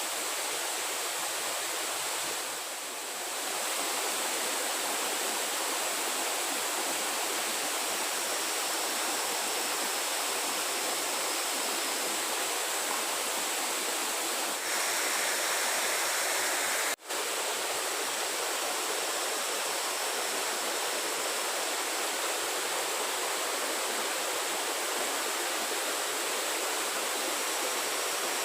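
Steady rushing of flowing water, with a thin steady high tone above it. The sound drops out for an instant about 17 seconds in.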